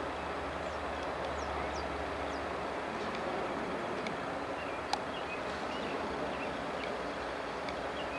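Pair of BNSF GE diesel locomotives running slowly, leading a loaded coal train, with a steady low engine drone and the rumble of the train on the rails. A single sharp click comes about five seconds in.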